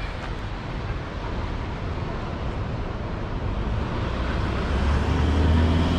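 A motor vehicle's engine hum grows louder and peaks near the end, over a steady rumble and hiss.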